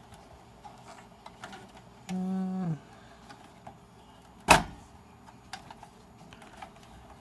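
Small clicks and rattles of a desktop computer's power supply being worked loose from the metal case, with one sharp knock about four and a half seconds in. About two seconds in, a short hummed "hmm" that dips at its end.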